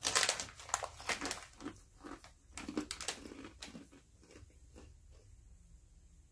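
Crunchy baked-bean puffs being bitten and chewed close to the microphone: a dense run of crackling crunches, loudest over the first four seconds, then fainter chewing.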